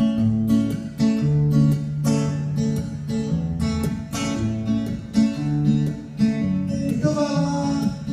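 Acoustic guitar strummed in a steady rhythm, playing a song's intro chords. A man's voice starts singing near the end.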